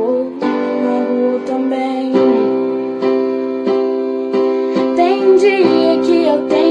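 Music: an instrumental passage of a song, with sustained keyboard chords changing every second or so.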